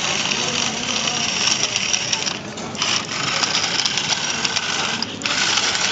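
Small electric gear motors of a wheeled robot whirring steadily as it drives. The whir cuts out for about half a second a little over two seconds in, and briefly again near the end.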